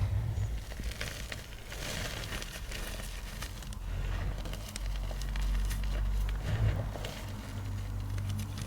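Small blocks of yellow-dyed gym chalk being crushed, a crunchy, crumbling sound made of many small crackles.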